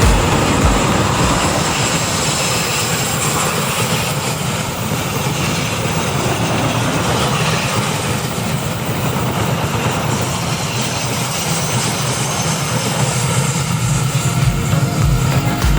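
Passenger train running past: a steady rumble and rush of wheels on rails.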